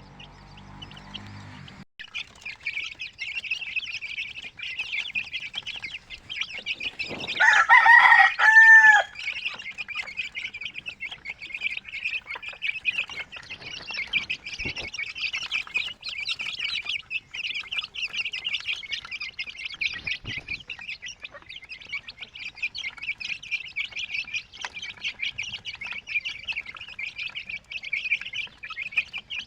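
A flock of young aseel x native crossbred chickens peeping in a dense, unbroken chorus of high chirps. A rooster crows once, loudly, about seven seconds in.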